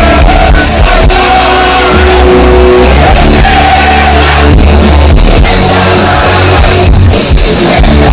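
Live rock band playing loud, with electric guitars, bass, drums and a singer, heard from within the crowd amid some shouting.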